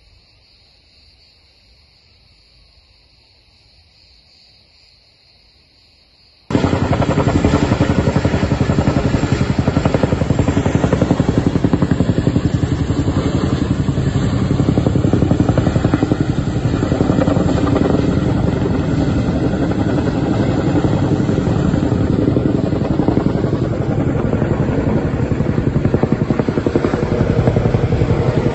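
A faint, steady insect chorus, then an abrupt cut about six and a half seconds in to the loud, fast, steady beating of a firefighting helicopter's rotor and turbine.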